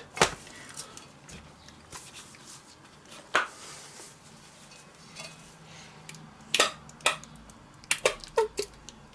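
Quiet kitchen handling: a few scattered clicks and knocks as a plastic squeeze bottle of mayonnaise is picked up and squeezed over pork pieces in a stainless steel bowl, with a short cluster of squirting sounds near the end.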